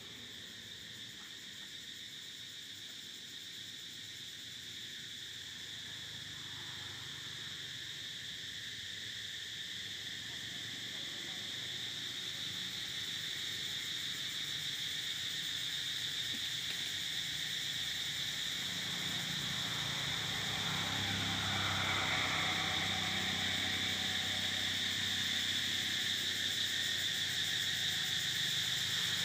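Insects droning steadily in a high, even chorus that slowly grows louder. A low hum joins about two-thirds of the way through.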